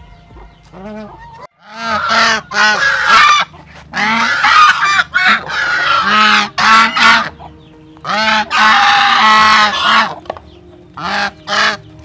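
Geese honking loudly, several birds calling over one another in runs of short repeated honks, starting about two seconds in and pausing briefly a few times.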